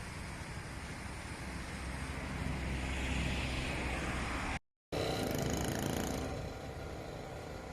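Road traffic going by, with a low rumble and tyre noise that swell as a vehicle passes about three seconds in. The sound drops out for a moment just before the middle, then more traffic noise follows and eases off.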